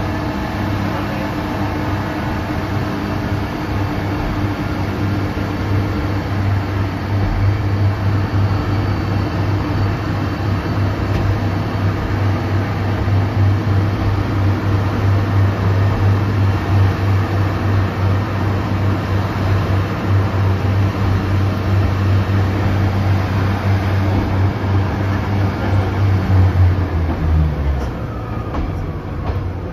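Class 144 Pacer diesel railcar heard from inside the carriage, its underfloor diesel engine droning steadily under power over the running noise of the wheels. Near the end the engine note drops and falls away as the power comes off.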